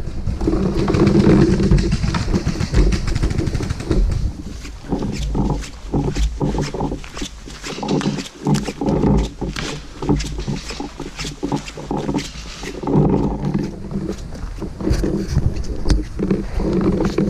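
Heavy, rasping breathing close to the microphone, in two long stretches at the start and near the end. In between comes a run of irregular sharp clicks and knocks.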